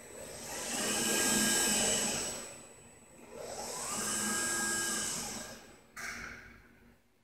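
ABB IRB 1400 industrial robot arm's servo motors and gearboxes whining as the arm makes two moves, each swelling up and fading away; in the second, the pitch rises as the arm speeds up. A brief sharp noise about six seconds in.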